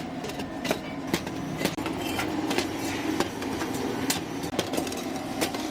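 Workshop metalwork: irregular sharp metal clanks and taps, several a second, over a steady machine hum.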